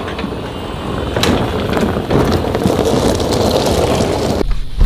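Golf cart driving out and passing close by over a gravel drive, its tyres crunching on the gravel, getting louder as it nears. The sound cuts off suddenly near the end.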